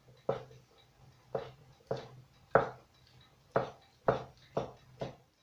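Kitchen knife slicing through mozzarella and knocking on a wooden cutting board: about eight separate cuts at an uneven pace of roughly two a second.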